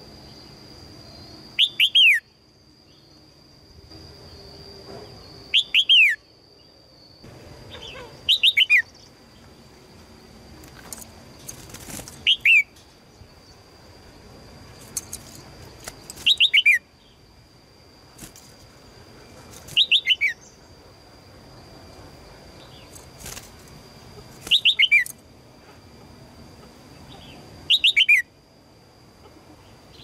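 Red-whiskered bulbul giving short sharp calls, eight in all, one about every four seconds, each a quick run of two or three notes falling in pitch. The title gives these as a female's calls to a male. A steady high thin tone runs beneath.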